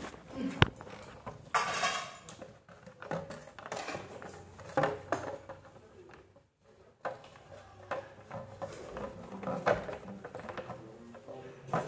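A parakeet pecking and tugging at the cap of a plastic water bottle: irregular clicks, taps and knocks of beak on plastic and of the bottle bumping the stone floor, with a sharp knock about half a second in.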